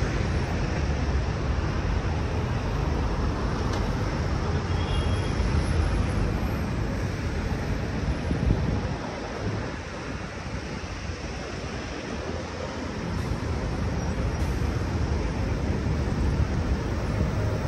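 City street traffic: a steady, dense rumble of passing vehicles that eases off for a few seconds about halfway through, then builds again.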